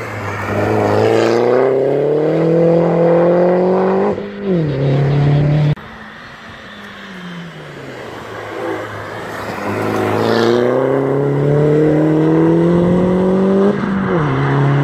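Two Mini Cooper race cars, one after the other, accelerating hard out of a hairpin. Each engine note climbs steadily for about three to four seconds, drops sharply at an upshift, then climbs again. The first car's sound cuts off suddenly just before six seconds in, and the second car starts its run about eight seconds in and shifts near the end.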